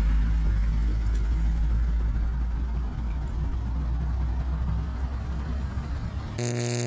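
Wind rumbling and buffeting on the microphone outdoors. About six and a half seconds in, it cuts to a steady buzzing synthesised tone.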